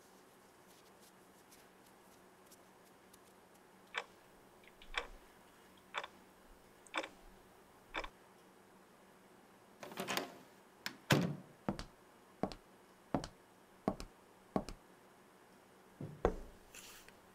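Wall clock ticking about once a second, then a quicker run of louder knocks like footsteps on a hard floor, and a paper coffee cup set down on a table with a thump near the end.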